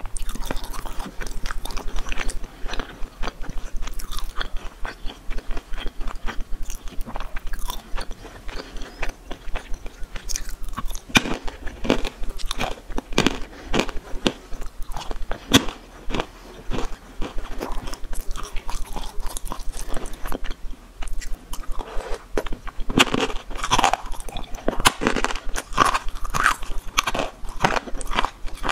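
Close-miked chewing of crunchy snacks: a person biting and chewing with a fast run of sharp crunches, busiest in the second half.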